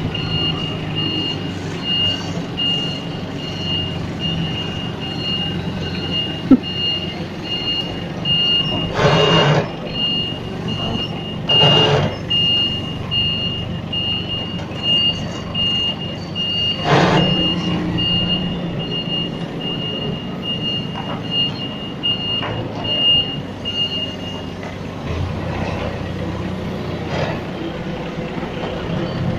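Forklift backup alarm beeping about twice a second over the steady running of the forklift's engine, stopping near the end, with a few loud knocks along the way.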